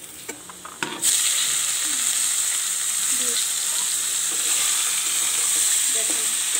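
Hot oil in a metal karai sizzling loudly as boiled bottle gourd greens and potato pieces are tipped in and stirred with a metal spatula. The sizzle starts suddenly about a second in, after a few light clicks, and then holds steady.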